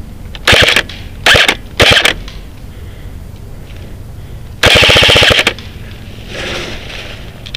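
Airsoft rifle firing full-auto: three short bursts in the first two seconds, then a longer burst of about a second near the middle, each a fast, even rattle of shots.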